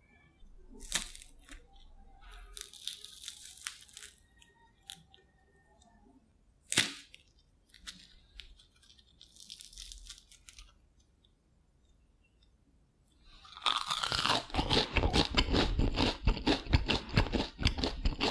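Crisp fried sweet potato balls being pulled apart by hand, with short crackling tears and one sharp snap. From about three quarters of the way through comes a loud, continuous run of rapid crunching.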